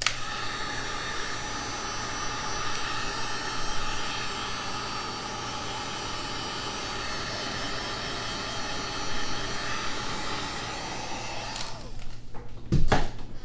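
Hot air gun blowing steadily, with a faint whine over the hiss, heating a small part on the old screen to loosen its adhesive; it cuts off about eleven and a half seconds in.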